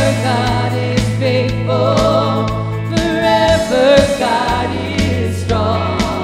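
Live contemporary worship band playing, with women's voices singing the melody over drum kit, electric guitar, keyboards and a steady bass line.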